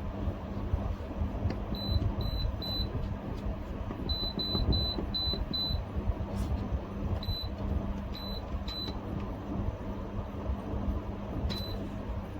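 Dehumidifier running with a steady hum while its control panel gives about a dozen short, high beeps, in quick runs of three and five and then singly or in pairs, as its buttons are pressed.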